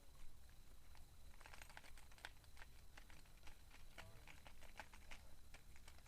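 Near silence, with faint scattered clicks and ticks over a low rumble.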